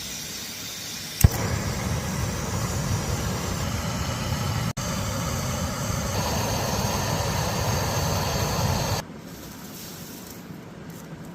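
Backpacking camp stove lit with one sharp igniter click about a second in, then burning with a steady rushing hiss that stops abruptly about two seconds before the end.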